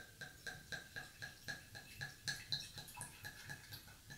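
Red wine glugging out of a bottle into a wine glass during a slow pour: faint, even glugs about four a second, each with a short ringing note.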